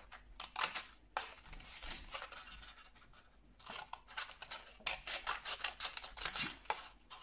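Scissors snipping through folded card, a run of short cuts one after another, with a lull about a third of the way in before another quick series of snips.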